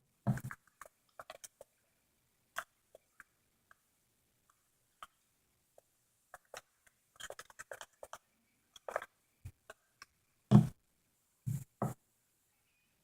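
Crunchy slime with beads being squeezed and poked: scattered crackles and clicks, with a few louder, deeper squishy pops at the start and again near the end.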